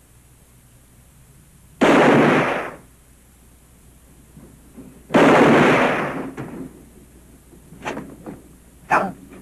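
Two gunshots about three seconds apart, each sudden and loud with a tail that dies away over about a second, followed by a few fainter knocks near the end.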